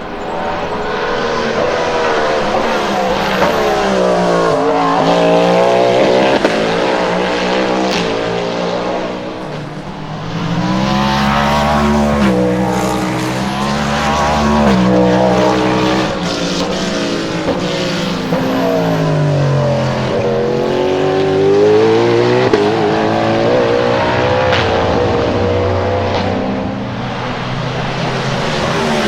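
Cadillac V-Series.R hypercar's naturally aspirated V8 racing on track, its pitch repeatedly falling on the downshifts and climbing through quick upshifts. The level dips briefly about ten seconds in, then rises again.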